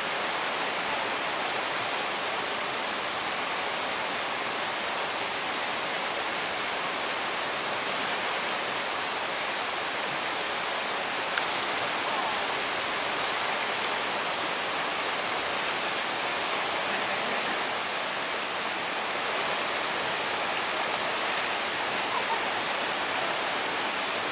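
Steady rushing of river water spilling over a small cascade into a rocky pool, with one short tap near the middle.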